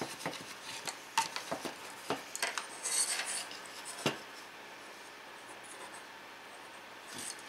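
Small clicks and rustles of wires and plastic crimp connectors being handled, then a plastic USB socket being fitted into a wooden panel, with one sharper click about four seconds in. Quiet room tone after that.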